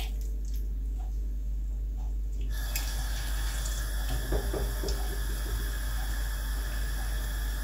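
Marinated chicken pieces sizzling in hot oil in a large non-stick pan; the sizzle starts suddenly about two and a half seconds in as another piece is laid into the oil, with a little handling of the pieces a second or two later.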